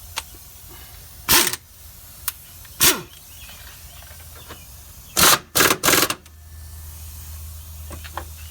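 Impact wrench with a 9/16 deep-well socket running in short bursts to tighten the nuts on a rear shock absorber mount: one burst about a second in, another near three seconds, then three quick bursts in a row about five seconds in.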